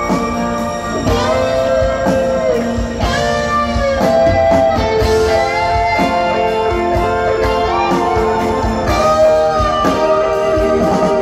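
Live rock band playing: an electric guitar lead of long, bending notes over bass guitar and drums.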